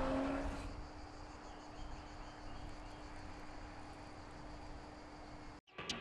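Insects chirring steadily at a low level, over a faint steady hum. In the first second a car engine and road noise rise in pitch, then cut off abruptly.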